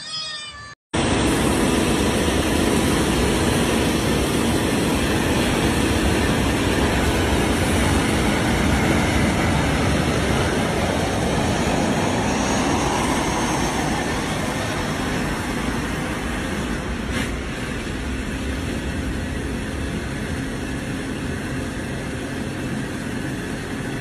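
Jet airliner engine noise, a loud, steady rush and rumble that starts abruptly about a second in and holds with little change, easing slightly toward the end.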